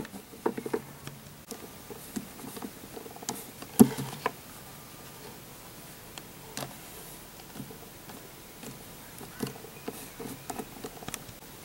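Scattered light taps and clicks of plastic Littlest Pet Shop figurines being handled and moved about on carpet, over faint room hiss; the sharpest click comes about four seconds in.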